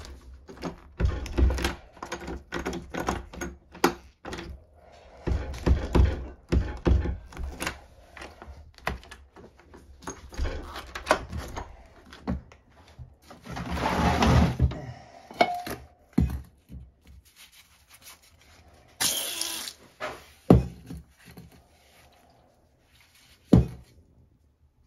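An old wooden door being worked open by its knob: a run of knocks, rattles and thumps. Then scattered bumps, a longer scraping sound about fourteen seconds in, and a few sharp knocks near the end as things in a cluttered room are handled.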